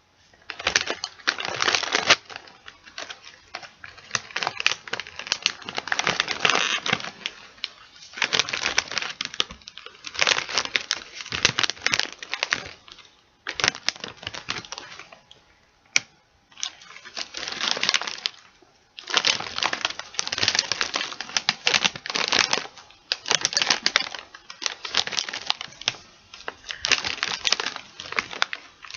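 A crinkly chip bag being handled and squeezed, giving bursts of crackling a second or two long with short pauses between them.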